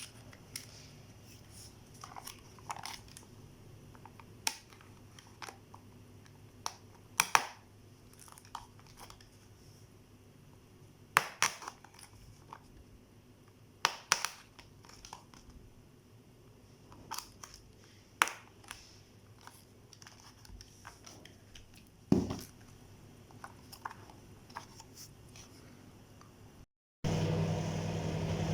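Plastic food packaging being handled and crinkled, in scattered sharp crackles and clicks. After an abrupt cut near the end, a microwave oven starts a steady hum.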